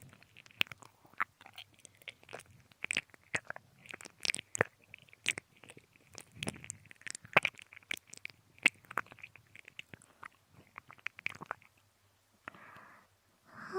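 Wet mouth sounds of ear licking right up against a binaural microphone: an irregular string of tongue clicks, smacks and slurps that thins out near the end.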